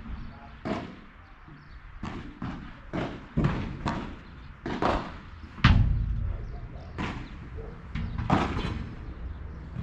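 Padel rally: a string of sharp knocks, about a dozen and irregularly spaced, as the ball is struck with solid padel rackets and hits the court and its glass walls. The loudest is a heavy thump a little over halfway through.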